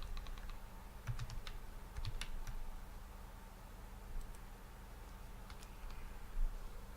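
Scattered light clicks of a computer keyboard being typed on, in short clusters, with a soft low thump about six and a half seconds in.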